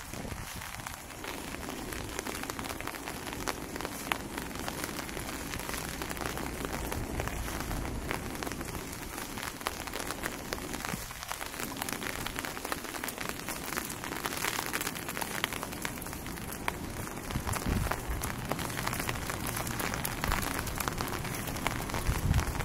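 Steady rain falling, with many individual raindrops ticking through the hiss.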